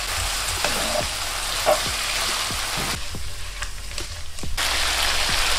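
Marinated chicken strips sizzling steadily in an oiled non-stick pan, the liquid they have released boiling off, with a few light knocks as the pan is handled. The sizzle thins briefly a little past halfway.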